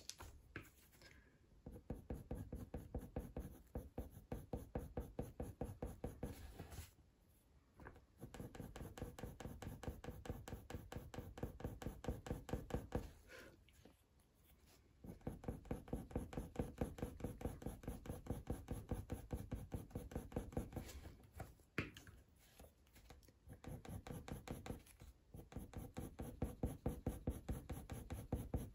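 Faber-Castell Polychromos black coloured pencil scratching back and forth on hot-pressed watercolour paper in fast, even strokes, several a second, with a few short pauses.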